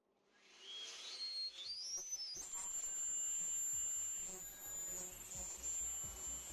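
Computer fan in a homemade mini vacuum cleaner spinning up: a whine rises in steps over about two seconds, then holds as a steady high whine.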